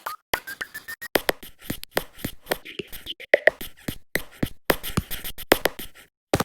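A beat chopped together from sampled Apple Pencil and iPad Pro tapping and clicking sounds, with quick uneven clicks and taps throughout. A short tone rises in pitch in the first second.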